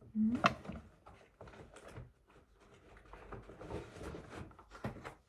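Small clicks, knocks and rustles of objects being handled in a small room, loudest in the first half second, with a brief low hum just after the start.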